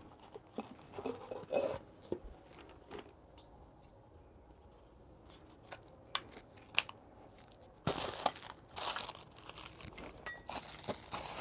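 A few scattered sharp clicks and taps, then from about eight seconds in a rustling, crinkling sound, like something being handled.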